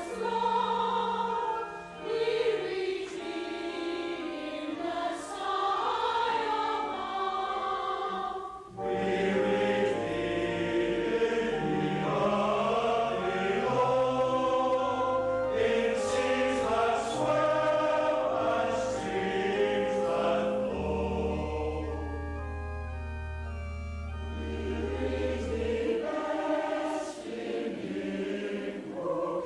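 Church choir singing, the phrases broken by two short pauses near the start. A low bass note is held for about five seconds past the middle.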